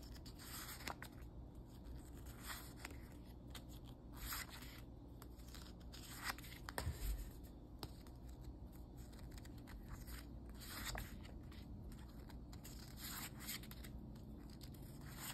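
Faint rustles and flicks of glossy sticker sheets being shuffled through in the hands, a sheet moved every second or two.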